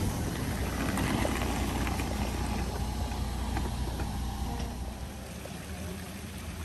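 City bus engine idling with a steady low rumble while its doors stand open. About five seconds in it gives way to the softer, steady rush of water from a large stone fountain.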